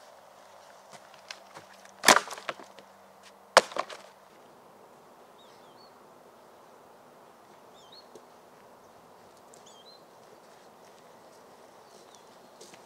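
Dry dead branches cracking sharply twice, about a second and a half apart, each snap followed by a brief splintering rattle. Faint bird chirps follow.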